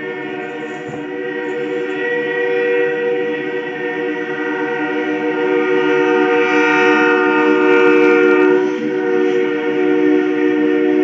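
Locomotive air horn sounding a long, held multi-tone chord, growing louder toward the middle and dipping briefly just before it goes on again.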